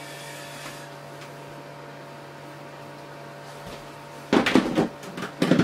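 Handling noise against a steady low hum: about four seconds in, a clatter and scrape of plastic tubs being moved lasts about a second, followed by a shorter one near the end.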